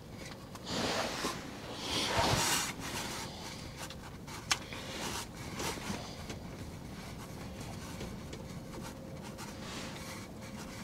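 Quiet rustling and handling noise, with two brief louder swells of rustling in the first three seconds and one sharp click about four and a half seconds in.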